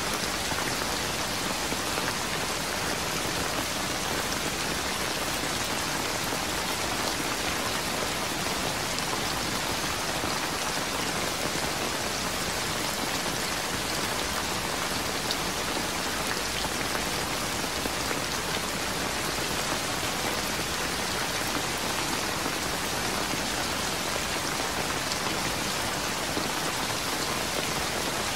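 Steady rain falling without pause, an even hiss with no thunder.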